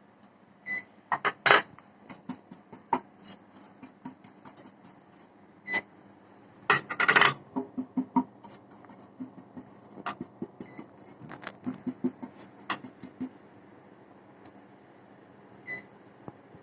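Cake tin being knocked and tapped over and over, with sharp clattering clicks in bursts, as flour is shaken round its oiled inside to coat it. The loudest burst of knocks comes about seven seconds in.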